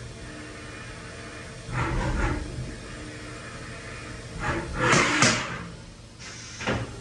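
CNC vertical machining center running its first operation with flood coolant: a steady wash of machine and coolant noise, with two louder swells of spray and machining noise about two seconds in and about five seconds in.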